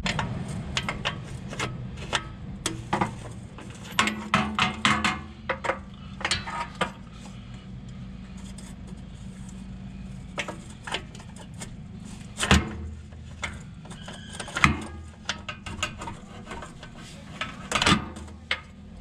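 Socket wrench working on the exhaust pipe bolts under the car: irregular metal clicks and clanks, with a quick run of clicks about four seconds in and a few single sharper knocks later, over a low steady hum.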